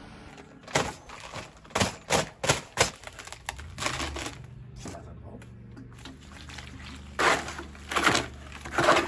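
A small batch of concrete mixed by hand in a mason's bucket: a quick run of sharp knocks, then several longer scraping strokes.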